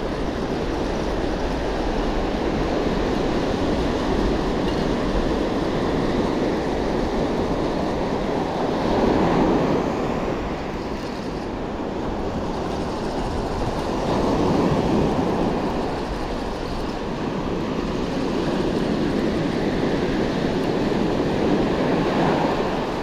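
Surf washing onto the beach, the noise swelling and easing every few seconds over a low steady rumble.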